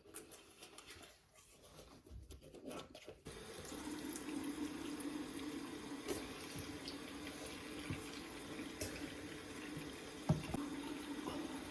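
Water running steadily, starting abruptly about three seconds in, with a single knock near the end.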